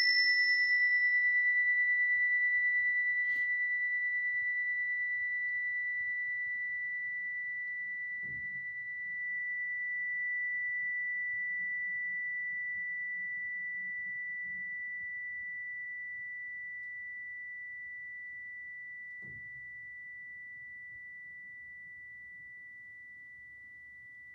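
A meditation chime struck once, its single high tone ringing on and slowly fading away over more than twenty seconds.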